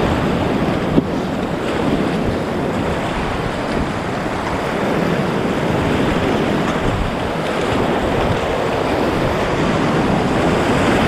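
Steady rush of whitewater rapids churning around a kayak.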